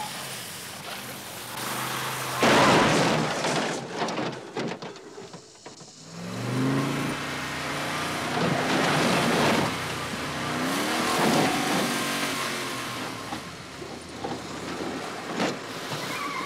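A car crash about two and a half seconds in, the loudest moment. Then a car engine revs in rising pulls, with further bursts of engine noise and a sharp knock near the end.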